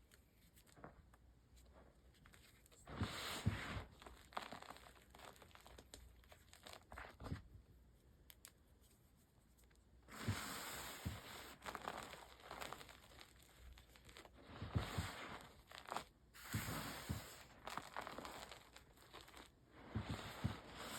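Reformed gym chalk being crushed and crumbled by hand, crunchy and powdery, in irregular bursts with quieter gaps between. The longest bursts come about ten seconds in and again near the end.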